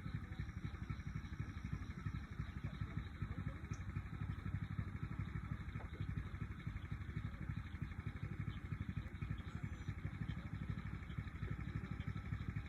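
Outdoor pond ambience: a steady low rumble throughout, with a few faint, short, high chirps of birds now and then.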